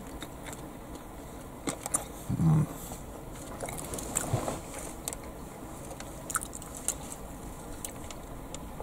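A person chewing a mouthful of battered, deep-fried pizza crunch: scattered small crunches and mouth clicks. There is one short, louder low sound about two and a half seconds in.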